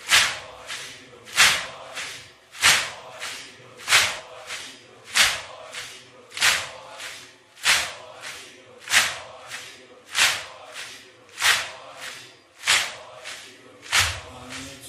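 A large crowd of mourners beating their chests in unison (matam) to the rhythm of a noha: a loud, sharp slap about every 1.25 seconds, with a softer one between each.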